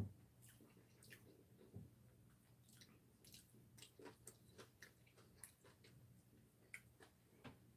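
Very faint eating sounds from a person eating cold bibim-myeon noodles: scattered soft mouth clicks and chewing, with a soft knock at the start and a steady low hum underneath.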